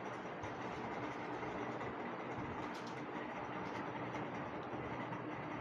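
Steady background noise with a faint hum, and a few light rustles of printed cotton fabric being unfolded and held up, a little past halfway.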